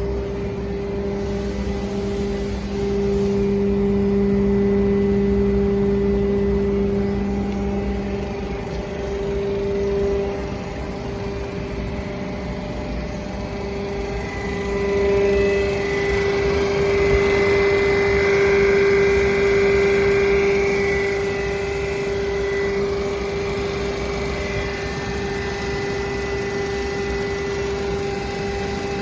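Hydraulic power pack of a double-action hydraulic metal scrap baler running with a steady pump whine. It grows louder and brighter for several seconds in the middle, then settles back.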